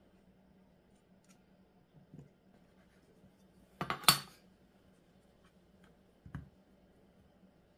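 Kitchen tools knocking on a plastic cutting board while frozen pastry dough is cut and handled. About halfway through there is a short clatter of a few quick knocks as the steel ruler and plastic knife are put down. Single soft knocks come before and after it.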